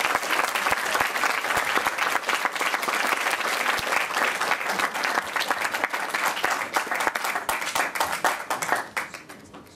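Audience applauding: dense, steady clapping from a seated crowd that dies away near the end.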